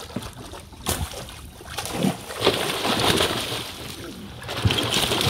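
Water splashing and sloshing as fish thrash inside a cast net being hauled up beside a bamboo raft, in two bursts, the second starting near the end. A single knock comes about a second in.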